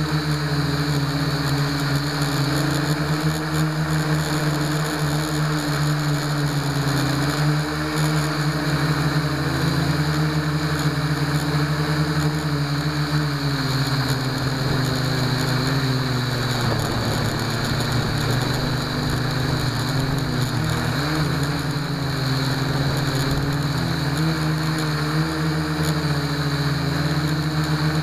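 Blade mQX quadcopter's motors and propellers, heard from a camera mounted on its frame: a steady buzzing whine of several close tones that wander up and down in pitch as the throttle changes in flight. The pitch dips for a few seconds past the middle and wavers again near the end.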